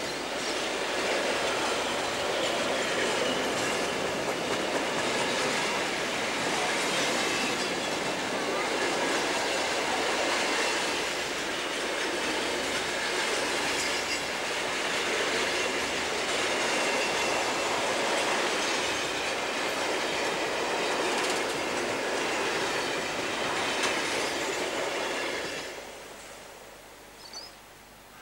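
Container freight train's wagons rolling past on the rails, a steady noise of wheels on track. Near the end the last wagon clears and the sound drops away sharply.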